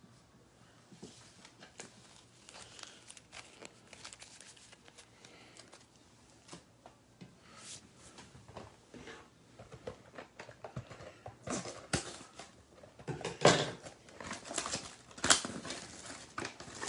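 Trading cards being handled: faint rustles and clicks as cards are slipped into plastic sleeves, then, from about two-thirds through, louder crinkling and crackling of packaging as an AEW trading-card blaster box is opened.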